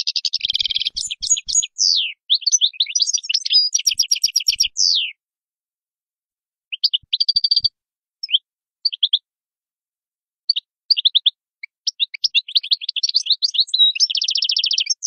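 European goldfinch singing a fast twittering song of rapid trills and chirps. The song breaks off for about a second and a half midway, resumes as scattered notes, and builds back into a long trill near the end.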